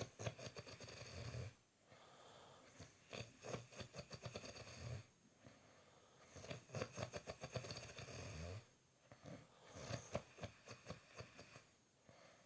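A person snoring in deep sleep: four rattling snores, each about two seconds long, with short pauses between them.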